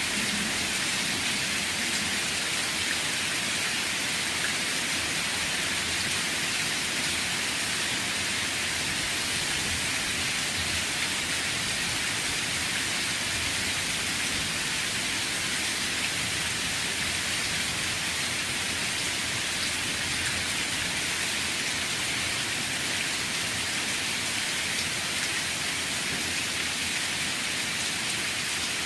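Steady rain falling on surfaces, an even hiss with no breaks or thunder claps.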